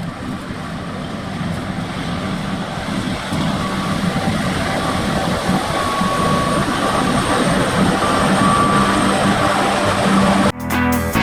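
Combine harvester running steadily with a hum and whine, growing louder. It cuts off abruptly near the end, replaced by guitar music.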